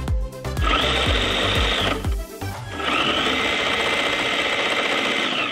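Electric drive motor and gear train of an HG P408 1/10 scale RC Humvee whining as its wheels spin, in two runs: about a second long, then a longer run of about three seconds. A music beat with a thumping kick plays under the first part.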